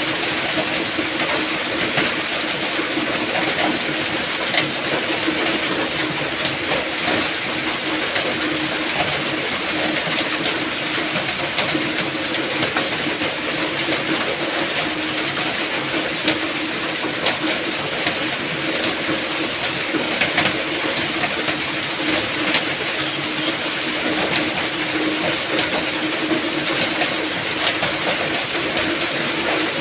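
Steady rain: an even hiss of rainfall with many small sharp drop ticks scattered through it.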